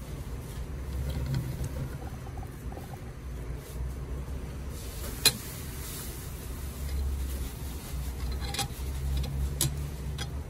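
Steady low rumble of a busy dining room, with one sharp click about five seconds in and two fainter clicks later on.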